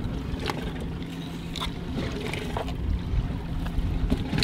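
A boat's motor humming steadily at idle, with scattered knocks and clicks from a halibut being handled and filleted on the metal-edged cleaning table, the loudest knocks near the end.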